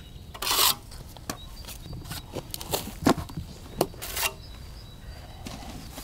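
Scattered clicks and short scrapes of a steel trowel and spatula: renovation filler being scooped onto the trowel and smeared onto a rendered wall.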